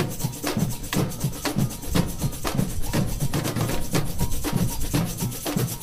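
Samba drum band (bateria) playing: deep bass drums under sharp snare and shaker strokes in a steady, even rhythm.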